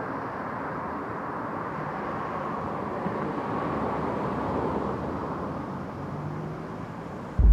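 Passing road traffic: a steady hiss of car tyres and engines that swells a few seconds in and eases off near the end.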